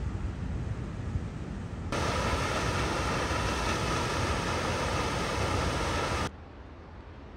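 Waterfall noise, a steady rush of falling water, loud from about two seconds in until it cuts off abruptly about six seconds in, leaving a quieter steady hiss. Before it, a low rumble.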